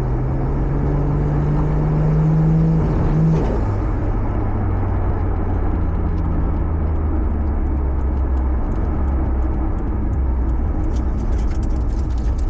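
Toyota Supra engine heard from inside the cabin while driving: its pitch climbs steadily under acceleration, drops suddenly about three and a half seconds in as it shifts up a gear, then settles into a steady lower drone.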